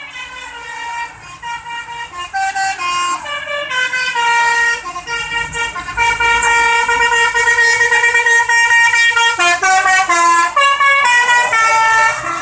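Bus telolet horn (Basuri multi-tone horn) playing a melody of held notes that step up and down in pitch, growing louder over the first seconds and loudest from about six seconds in, with quicker note changes near the end.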